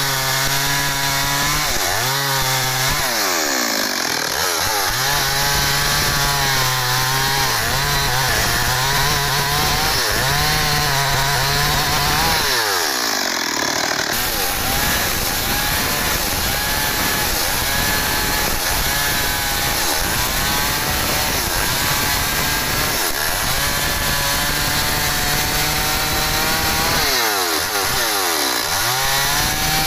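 Stihl MS 382 two-stroke chainsaw running and cutting wood. Its engine note rises and falls as the throttle is opened and eased, with quick revs near the start, about halfway and near the end.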